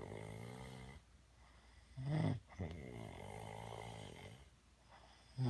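A man snoring in his sleep, a pitched, drawn-out, zombie-like rasp. Long, moderate snores alternate with shorter, louder ones: a louder one about two seconds in, and another starting near the end.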